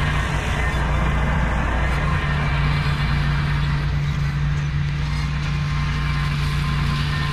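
Ventrac compact tractor's engine running steadily at a constant pitch, with a broad rushing noise over it.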